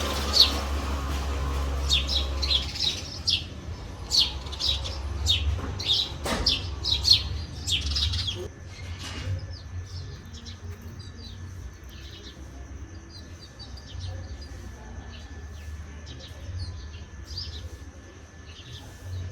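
Small birds chirping in short, quick calls, thick for the first eight seconds or so and sparser after, over a low rumble.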